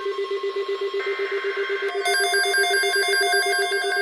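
Electronic alert alarms of weather radio receivers going off for a new alert: a rapidly pulsing low tone, joined about two seconds in by a louder, higher beeping pattern of several tones.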